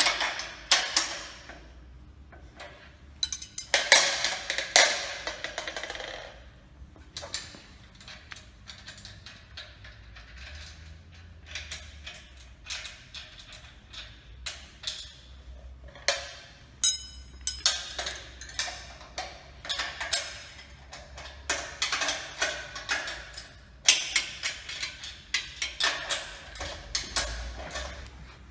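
Hand-tool work on a steel sawmill frame: irregular metallic clicks, taps and clinks of a hex key and bolts against steel box-section rails and an aluminium bracket, with short bursts of rapid ratchet-like clicking as bolts are run in and tightened.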